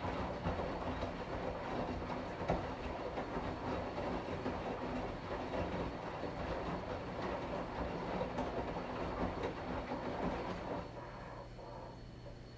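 Washing machine running, its drum churning the load over a steady motor hum; the churning eases off about eleven seconds in, leaving a quieter hum.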